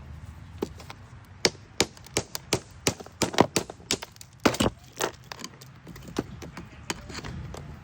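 Sharp taps and knocks of a hand tool chipping and prising at a stony lump, a quick flurry of hits in the middle with scattered taps either side.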